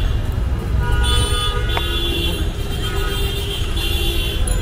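Street traffic: vehicle horns honking again and again in short blasts over a steady low traffic rumble, with one sharp click about two seconds in.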